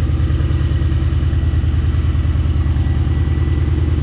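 A 2008 Ford Mustang GT's 4.6-litre three-valve V8 idles loud and steady, heard close up from the open engine bay.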